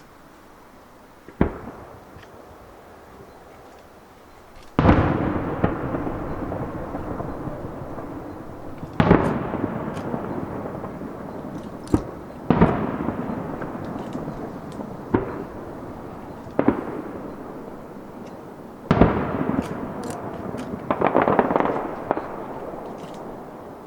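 Aerial firework shells bursting: about eight sharp booms, each followed by a long rolling echo. A stretch of dense crackling comes near the end.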